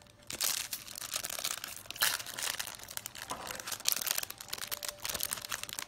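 Plastic cookie wrapper crinkling and tearing as it is opened by hand, a dense run of crackles starting about half a second in and going on almost to the end.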